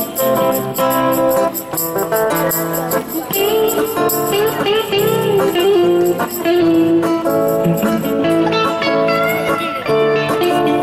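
Live band playing: an electric guitar plays a lead line with bent notes over an acoustic guitar.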